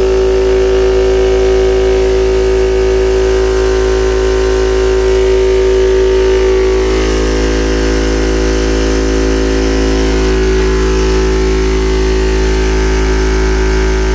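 Yong Heng high-pressure PCP air compressor running steadily under load, a loud even drone with a strong steady tone, while it pumps an empty air cylinder up from zero.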